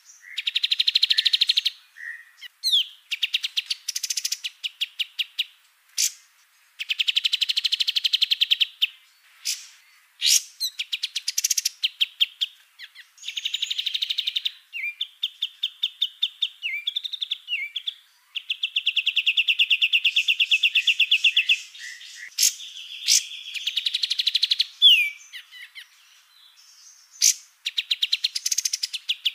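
Recorded songs of cucak cungkok, cililin and kapas tembak songbirds: fast trilled phrases a second or two long alternate with sharp chirps and short whistles, broken by brief pauses.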